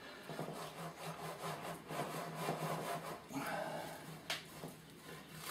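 Hands pressing a field maple's root ball and soil down into a bonsai training pot: irregular scraping and rustling, with a sharp click about four seconds in.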